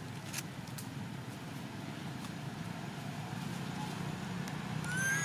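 A young macaque gives one short, high crying call near the end, rising then falling in pitch, over a steady low background rumble. A single sharp click about half a second in.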